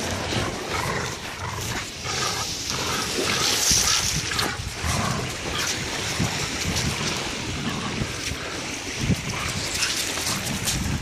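A dog's sounds over steady wind on the microphone and small waves lapping at the shore.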